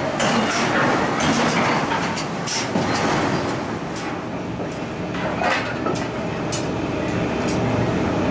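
Steady machinery rumble with irregular sharp metal clanks of long forging tongs on a red-hot forged steel ring.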